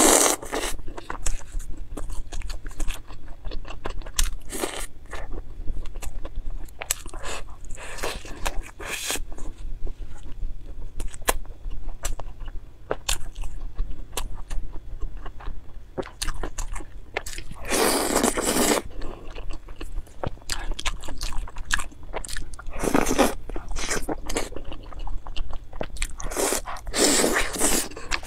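Close-miked biting and chewing of grilled sausage and chicken off skewers: crunching, with many sharp wet mouth clicks. Several louder bursts of noise come in the second half.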